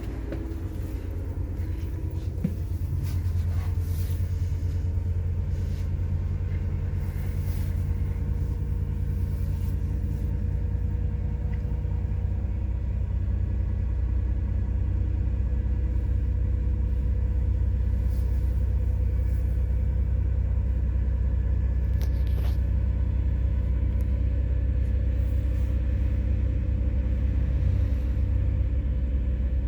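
MAZ-103 city bus running on methane: a steady low engine and drivetrain rumble that grows a little louder over the first half, with a few faint clicks and rattles.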